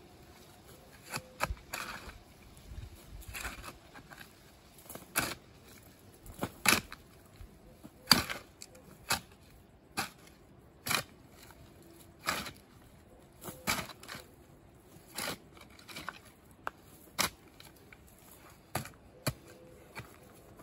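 A shovel's blade being driven again and again into dry, grassy ground full of roots, each stroke a short sharp chop with a tearing crunch of soil and roots, about one every second or so.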